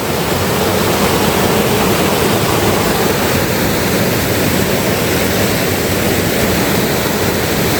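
Waterfall cascade rushing close by: a steady, loud noise of falling water.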